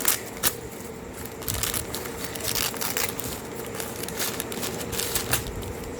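Paper crinkling and crackling in irregular bursts as a small wrapped item is unwrapped by hand.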